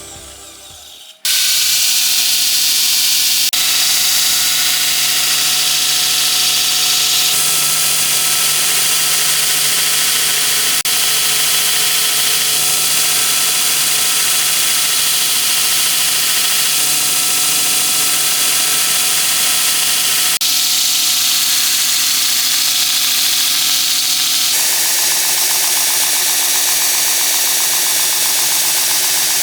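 Electric workshop power tool running steadily while working a steel knife blank, a steady hiss with a motor hum. It starts abruptly about a second in, and its tone shifts suddenly a few times.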